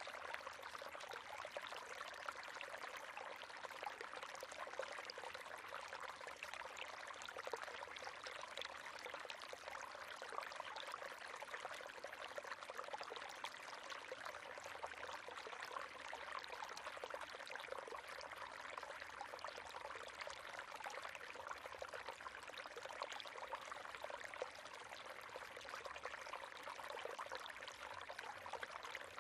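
River water running steadily over rocks, an even splashing and gurgling rush with no pauses.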